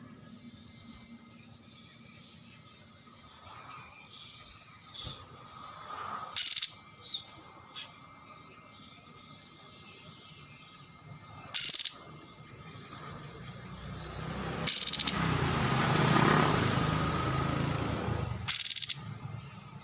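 A songbird repeats a short, loud, high buzzy trill four times, a few seconds apart, over a steady high drone of insects or crickets. A rushing noise swells and fades in the last few seconds.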